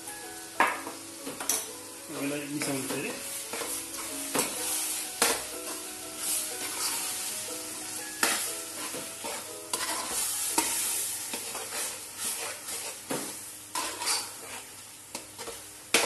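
Sliced onions with ginger, garlic and green chilli paste sizzling in hot oil in a large metal pot, stirred with a metal spatula that scrapes and knocks against the pot many times.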